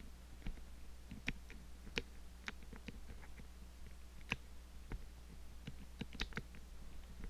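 Lock picks working the levers inside the core of an Ingersoll 10-lever padlock: small, irregular metallic clicks and ticks as the levers are lifted and set, a few of them sharper than the rest. A steady low hum sits underneath.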